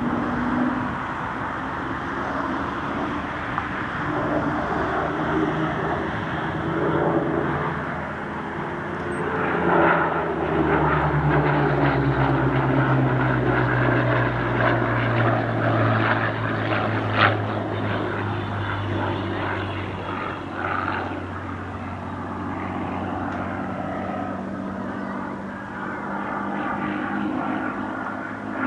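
Supermarine Spitfire's V12 piston engine droning through a display pass. The drone grows louder about ten seconds in, and its note falls in pitch as the aircraft goes by.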